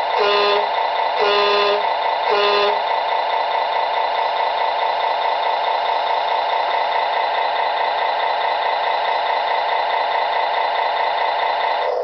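Simulated engine sound from an RC track loader's Servonaut SMT sound module, played through a small speaker: three short electronic beeps in the first three seconds, then the engine sound running steadily.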